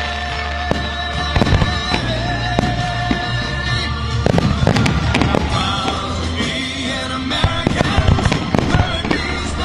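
Aerial firework shells bursting in a rapid series of sharp bangs, thickest around the middle and again near the end, over steady music.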